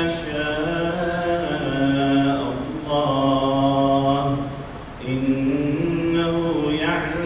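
A man reciting the Quran aloud in a slow melodic chant (tilawah), leading a congregational prayer. He sings phrases of long held, gliding notes, with a brief pause just before the five-second mark.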